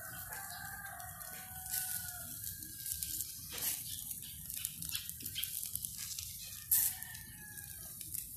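A rooster crows, one call about two seconds long at the start and a shorter one near the end, over the crackle and sizzle of pork fat on the charcoal grill, with one sharp louder crack about seven seconds in.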